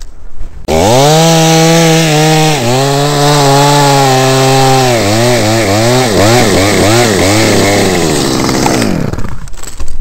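Two-stroke chainsaw revving up about a second in and running at high speed, its engine pitch repeatedly dipping and recovering in the second half, then dying away near the end.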